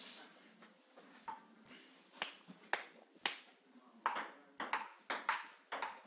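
Table tennis rally: the celluloid ball clicking sharply off bats and table, about two hits a second at first, with the hits coming closer together in the last two seconds.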